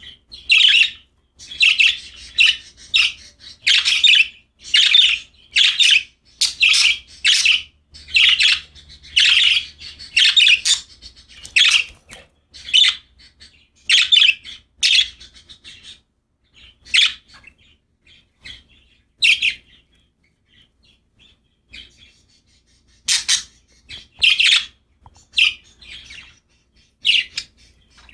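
Pet budgerigars chirping: a quick run of short, high chirps and squawks that thins to a few scattered calls with a lull past the middle, then picks up again near the end.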